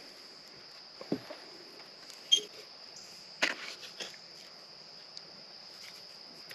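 A steady high insect trill in the background, with a few short knocks and rustles as ground coffee is shaken from a plastic canister into a glass carafe. The loudest knock comes a little over two seconds in.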